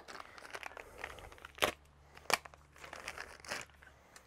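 Clear plastic bag crinkling as small metal floor tom leg brackets are handled in and out of it, with a few sharp clicks of metal parts knocking together.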